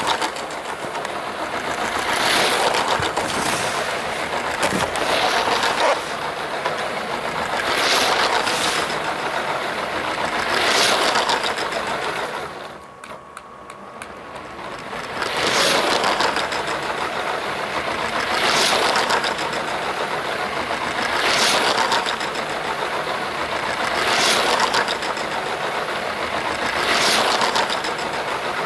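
LEGO City 60197 passenger train's battery-powered motor whirring and its wheels rattling over plastic track, swelling in loudness about every two and a half to three seconds. The sound drops away for a few seconds around the middle, when the train is far from the microphone.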